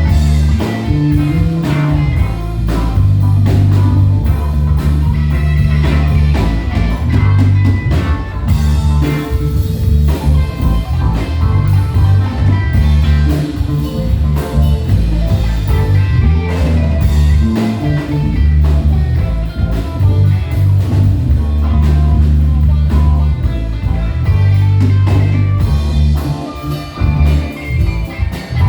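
Live band playing an instrumental, blues-rock in feel: guitar over a bass line and drum kit.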